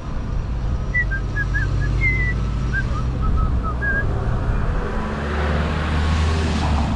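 Wind rumbling on the microphone with road traffic. A car's engine hum rises as it passes near the end. Between about one and four seconds in comes a string of short, high whistled chirps.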